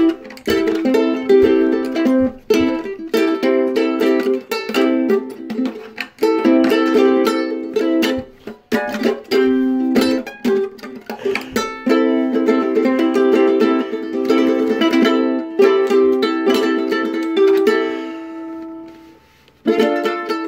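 Ukulele being strummed and plucked, a run of chords and single notes. Near the end a note rings out and fades away, and after a short pause the playing starts again.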